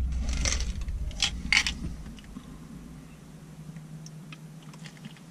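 Plastic water bottle being handled and drunk from: a few sharp plastic crackles in the first two seconds, then faint ticks of drinking over a low steady hum.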